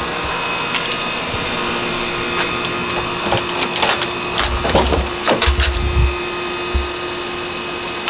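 A steady machine hum made up of several constant tones. A few short low thumps sound near the middle.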